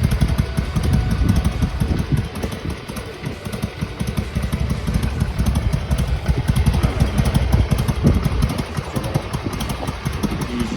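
Harley-Davidson Sportster XL883R's air-cooled V-twin idling during warm-up, its idle speed just raised about a quarter turn too high and being turned back down. The firing pulses run steadily, a little quieter for a couple of seconds early on.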